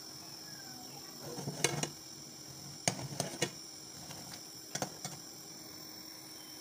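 Steel ladle clinking against a steel pot of boiling milk tea, with sharp knocks in three short groups as the chai is stirred and ladled back into the pot. A steady high chirring of crickets runs underneath.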